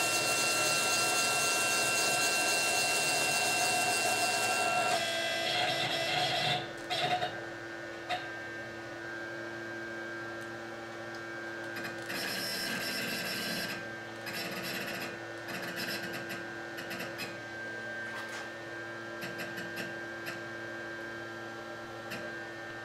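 Stepper motors of a 6090 CNC router whining as the gantry is jogged from a handheld pendant to bring the tool over the workpiece for zeroing: a steady high whine for about five seconds, then shorter moves about six seconds and twelve seconds in, with a few clicks. A steady hum runs underneath.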